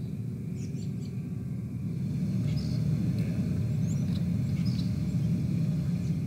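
Outdoor ambience: a steady low rumble, somewhat louder from about two seconds in, with a few short high chirps from birds over it.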